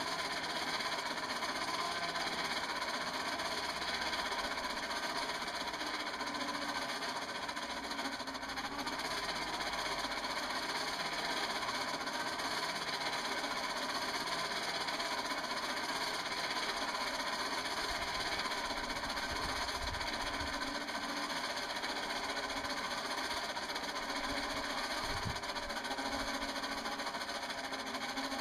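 Forge blower running steadily, forcing air up through the smoking coal fire being lit.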